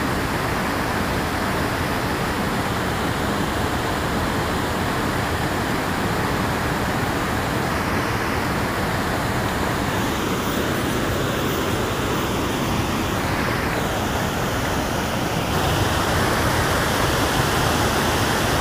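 Steady rush of water pouring over a low, wide waterfall into a pool, a little louder near the end.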